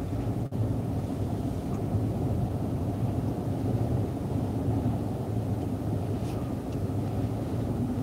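Car engine running, heard from inside the cabin as a steady low rumble.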